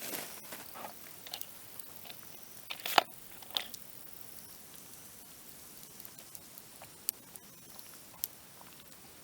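Dry branches burning in a campfire, crackling with scattered sharp pops over a faint steady hiss; the loudest pop comes about three seconds in, and a few fainter ones follow later.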